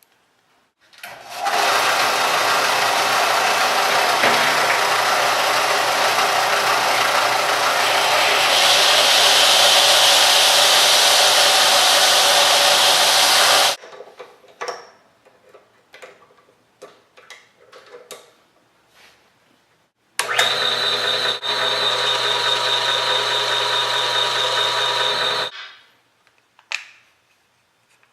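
Two runs of an electric power tool working wood. The first is a long steady run that grows brighter and louder about two thirds of the way through. Light clicks and knocks of handling follow, then a shorter, more evenly pitched run of about five seconds.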